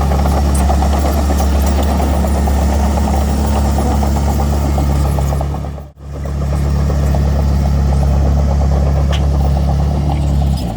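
Heavy diesel engine of earthmoving equipment running at a steady speed, a deep even hum with mechanical clatter over it. The sound dips out for a split second about six seconds in, then carries on the same.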